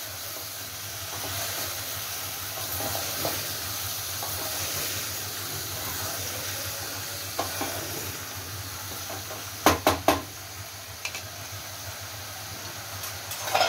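Chopped bottle gourd and radish sizzling in oil in an aluminium pressure cooker while a wooden spatula stirs them, a steady hiss with scraping. About ten seconds in come three sharp knocks as the spatula is put down.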